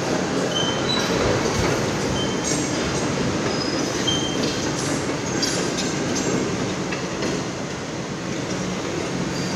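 Caterpillar 349E excavator travelling on its steel tracks over a steady engine rumble, the track links clanking, with several short high-pitched squeals through it.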